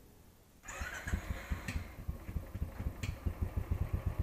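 Royal Enfield Classic 350's single-cylinder engine cold-started, catching about two-thirds of a second in and settling into a steady idle with a quick, even thump.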